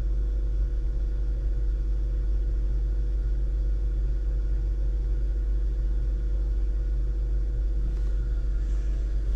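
A boat's freshwater pump running with a steady low hum, pushing antifreeze through the plumbing for winterizing.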